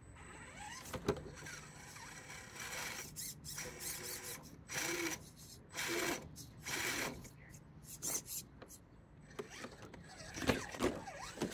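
Electric drive motor and gearbox of an RC rock crawler whining in short, stop-start bursts as it crawls over rocks, with occasional sharp knocks.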